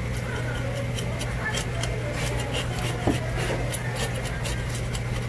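Knife or shears working on a raw sea bass on a cutting board: many quick, irregular scraping clicks over a steady low hum.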